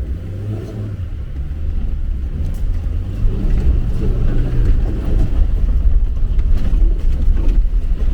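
Off-road 4x4's engine running under way, a steady low rumble that slowly grows louder.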